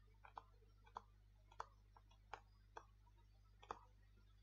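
Faint, irregular taps of a stylus pen on a tablet surface while handwriting, about two a second, over a low steady hum.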